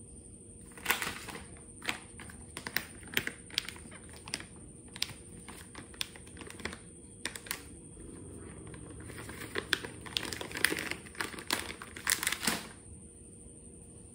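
Close handling noise: an irregular run of sharp clicks and ticks, thickening into a few seconds of dense crackling near the end.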